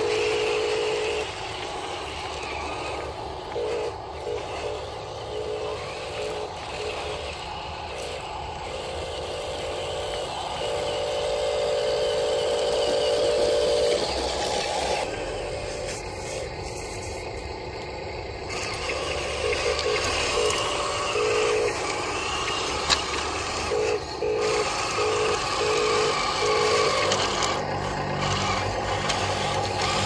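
Radio-controlled model dump truck and wheel loader running, with small motors and some gravel scraping. A mid-pitched electronic tone switches on and off, at times held for several seconds and at times in short repeated pieces.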